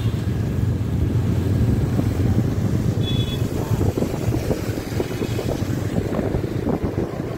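Motorcycle on the move: wind buffeting the microphone over the steady drone of the engine, with rougher crackling gusts in the second half. A brief faint high beep sounds about three seconds in.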